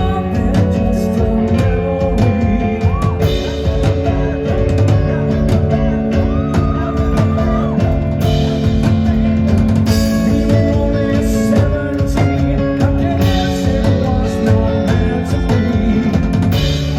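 Rock band playing live, with drum kit and guitars.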